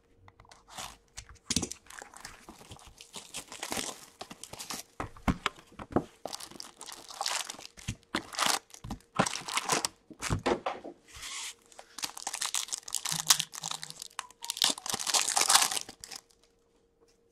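Plastic wrapping and foil card packs from an Upper Deck Series 2 hockey hobby box being torn and crinkled by hand, in irregular bursts of tearing and rustling. The loudest tearing comes near the end, as a foil pack is ripped open.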